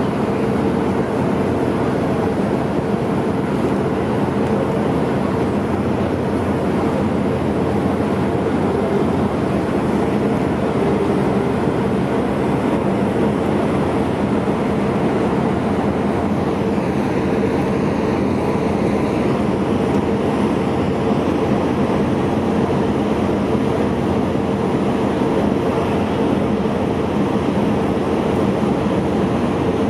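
Steady, loud drone of ship machinery: a constant low hum with an even rush of noise over it, unchanging throughout.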